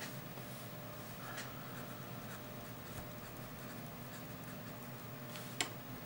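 Pen writing on squared notebook paper: faint scratching strokes, with one sharp tick of the pen tip on the paper about five and a half seconds in.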